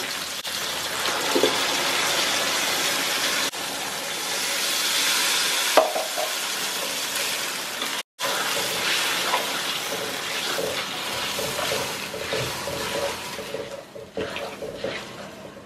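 Blended masala paste sizzling and frying as it goes into hot oil and onions in a wok, with a steel spatula stirring it through. The sound cuts out for a moment about eight seconds in, and the sizzle dies down near the end.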